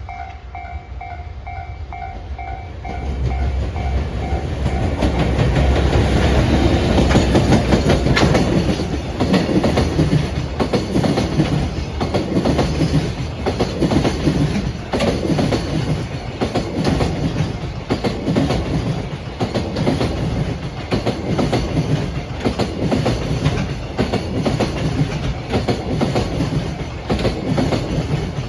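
A level-crossing warning bell dinging quickly, then a JR Freight EF210 class 100-series electric locomotive with a train of 20 Koki container flatcars passing: the train's rush builds to its loudest about six to eight seconds in, followed by a regular clatter of wagon wheels over the rail joints.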